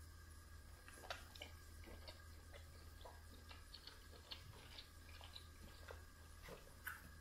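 Faint, scattered small clicks and crackles as fingers pick cooked lobster meat from the shell, over a low steady hum.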